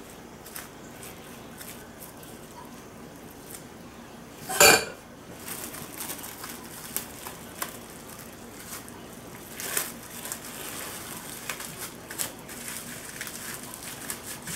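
Metal slotted spoon scraping butter onto plastic wrap, with a loud clank of kitchen utensils about five seconds in and a smaller one near ten seconds. Plastic wrap crinkling and rustling as it is pulled over the butter and rolled.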